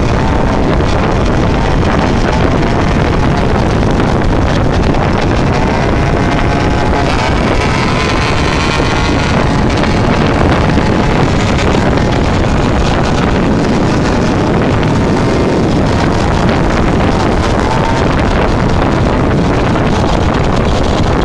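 Small motorbike engine running at road speed, with heavy wind buffeting on the microphone. About a third of the way in its pitch rises as it accelerates.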